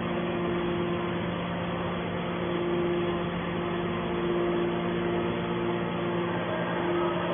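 Hydraulic scrap metal baler (Y81-250) running with a steady mechanical hum, a higher tone coming and going over it every second or so.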